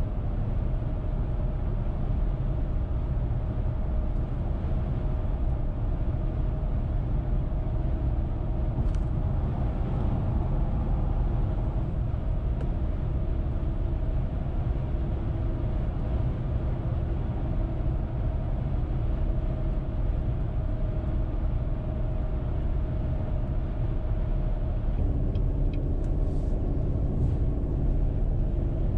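Steady road noise of a car driving on the interstate, heard from inside the cabin: even tyre and engine noise with a faint steady hum.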